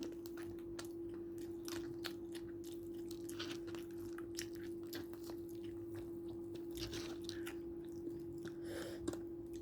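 Close-miked chewing and biting of a fried-chicken meal: soft wet mouth clicks and occasional crunches, with a steady hum underneath.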